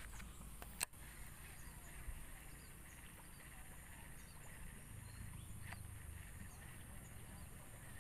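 Faint outdoor ambience with a steady high hiss, broken by a single sharp click about a second in and a fainter click near the six-second mark.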